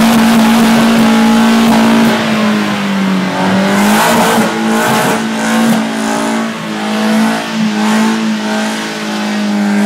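Datsun 510 doing a long burnout: the engine held at high revs in a steady drone while the rear tyres spin and squeal on the concrete. The revs sag briefly about three seconds in, then waver a little.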